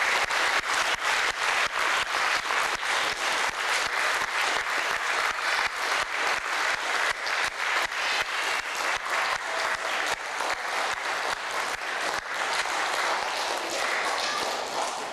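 Audience applauding, with the claps falling into an even beat of about three a second. The applause fades away near the end.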